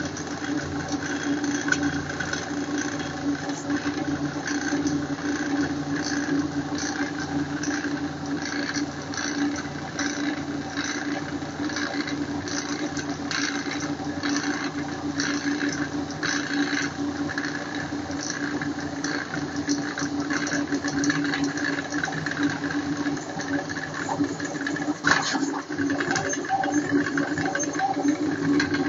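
QU-BD Revolution XL 3D printer running at high speed (300 mm/s): its stepper motors drive the print head back and forth on rods and toothed belts, giving a continuous mechanical whine with a rattle and many short clicks.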